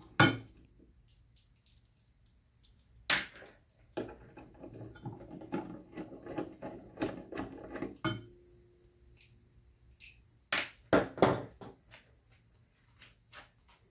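Hand screwdriver backing screws out of a small metal block, with scratchy ticking as the screws turn and sharp clicks and knocks of metal parts, three close together as the block comes off near the end.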